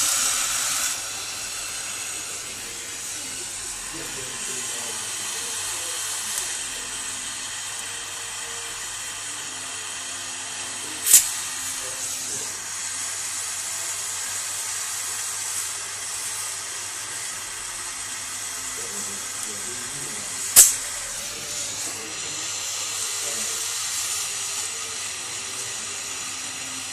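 A gas torch flame hisses steadily as it melts a lead-acid battery's lead terminal posts and connectors together. The hiss is louder for the first second, then settles lower. Two sharp clicks, about nine seconds apart, are the loudest moments.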